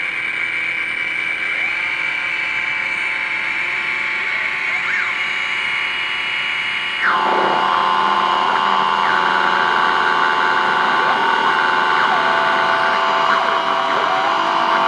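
Homemade electronic oscillator box putting out sustained, layered electronic tones whose pitch shifts as its knobs are turned. A steep downward pitch sweep comes about seven seconds in, after which it gets louder, and a rising sweep starts near the end.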